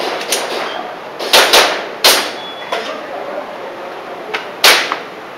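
Airsoft pistol shots: four loud, sharp pops, three in quick succession about a second in and one more near the end, with fainter clicks between them.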